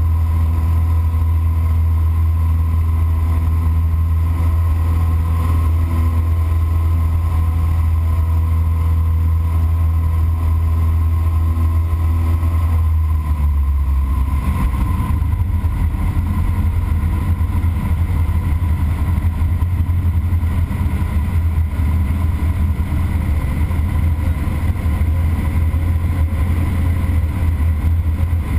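Engine and propeller of an American Champion light aircraft droning steadily in cruise, heard inside the cabin. About halfway through, the even hum turns rougher and noisier while the level stays the same.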